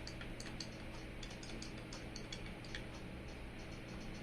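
Irregular light clicks and ticks, several a second, over a low steady hum.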